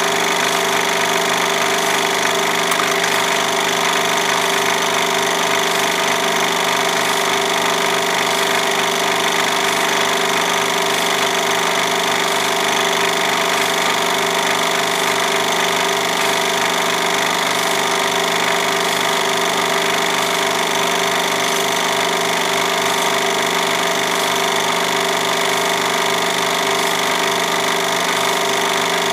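Film projector running: a steady mechanical whir with a fast, even clatter of the film advance.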